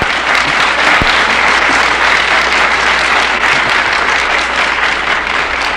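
Audience applauding: dense, steady clapping across a large crowd that begins to die away near the end.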